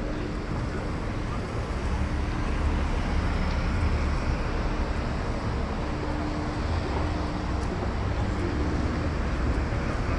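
Town street traffic noise: a steady low diesel engine rumble, with a concrete mixer truck coming down the road.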